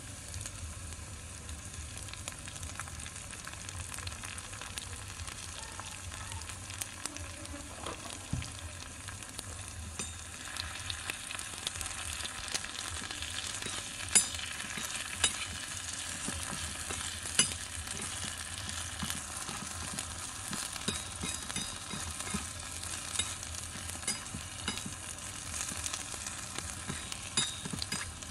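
Eggplant and meatballs frying in a miniature wok, a steady sizzle with the scrape and clink of a metal spoon stirring against the pan. The sizzle grows louder about ten seconds in, and a few sharp clinks of the spoon on the wok stand out.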